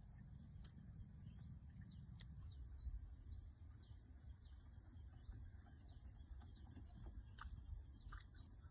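Small birds chirping faintly, a quick run of short high chirps, over a low outdoor rumble.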